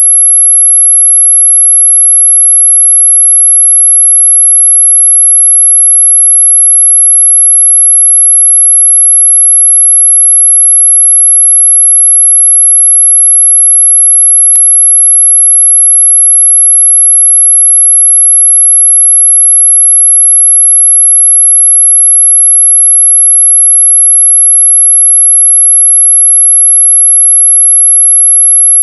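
Synthesized anti-mosquito tone: one loud, steady, very high-pitched pure tone, held unbroken without any change in pitch. A faint tick comes about halfway through.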